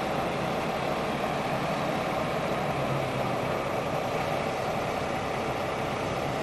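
Diesel engine of a demolition excavator running steadily with an even low hum.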